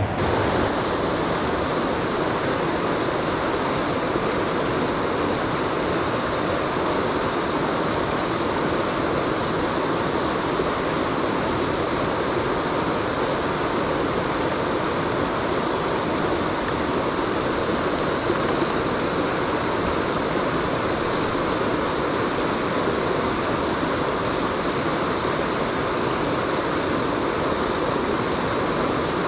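Creek water rushing steadily, a loud, unbroken wash of noise.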